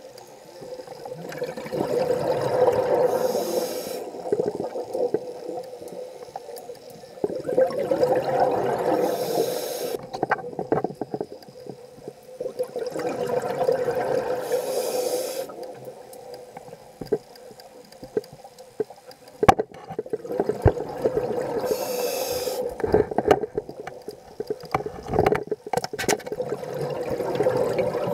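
Scuba regulator breathing underwater: bursts of bubbling exhaust about every five to six seconds, with short hisses in between, and several sharp clicks in the second half.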